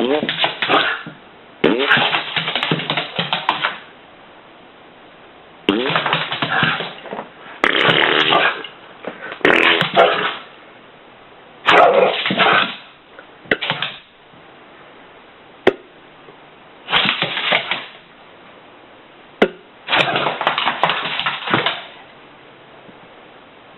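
Animal farting: about nine loud, rough bursts, each half a second to two seconds long with short gaps between, some starting with a brief rise in pitch.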